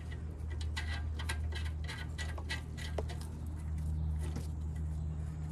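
Light, irregular metallic clicks and ticks as a stud and flange gasket are handled and fitted at an exhaust manifold catalytic converter, over a steady low hum.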